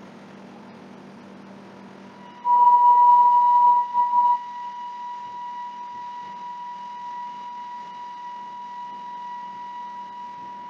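A steady, high, beep-like tone starts suddenly about two and a half seconds in, is loud for about two seconds, then holds on more quietly, over a low steady hum.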